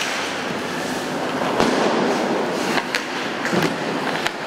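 Ice hockey skates scraping across the ice, with hockey sticks clacking against each other and the puck in a scramble in front of the net: a few sharp clacks over a steady scraping hiss.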